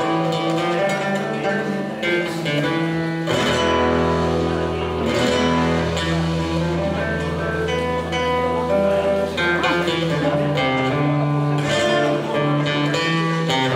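Live band playing a song, guitars to the fore over bass and drums, with a long held low bass note in the middle.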